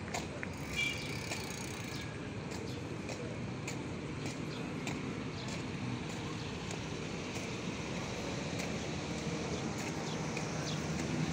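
Footsteps on concrete, about two a second, over a steady low rumble of traffic, with a short high squeak about a second in.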